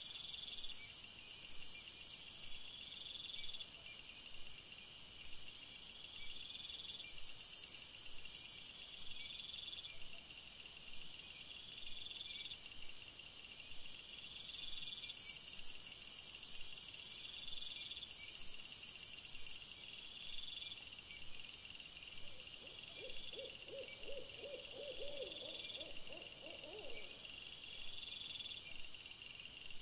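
Night insect chorus: steady, rapidly pulsing chirps over a high, continuous hiss that swells and fades. A brief, lower warbling animal call comes in about three-quarters of the way through.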